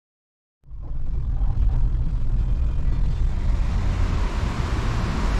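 Car driving, heard from inside the cabin: a steady low road rumble with tyre and wind noise, starting after about half a second of silence.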